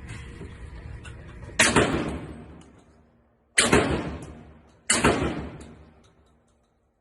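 12-gauge shotgun fired three times, the second shot about two seconds after the first and the third about a second and a half later, each blast followed by a fading echo.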